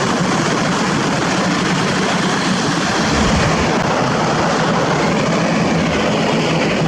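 Diesel engine of heavy equipment running steadily at a constant level, with a low drone and dense mechanical noise over it.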